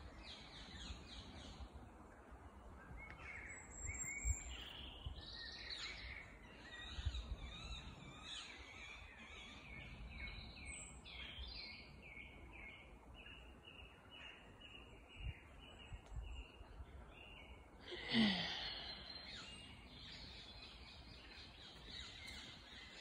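Woodland birdsong: several birds calling and singing, with a run of evenly repeated high chirps in the middle, over a low background rumble. About three-quarters of the way through, a brief louder sound falls in pitch and stands out above the birds.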